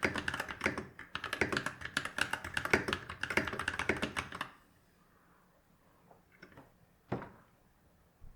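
Fast typing on a hot-swap mechanical keyboard with stock Glorious Holy Panda tactile switches and PBT keycaps, stopping about halfway through. A few single clicks follow, the loudest about seven seconds in.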